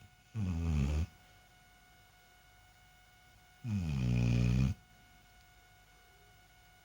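Snoring: two loud, low, rattly snores about three seconds apart, each lasting roughly a second, with quiet breathing pauses between.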